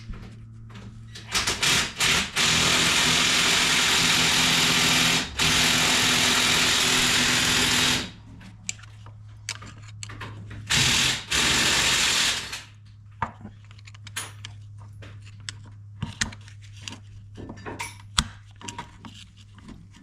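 A motorised power tool runs for about six seconds with a short break, then runs again briefly. A steady low hum continues underneath, and small metal clicks follow near the end.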